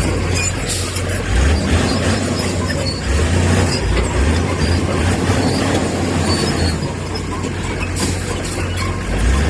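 Heavy diesel earthmoving machinery running under load, a steady low rumble that swells and eases, with scattered light clinks and rattles.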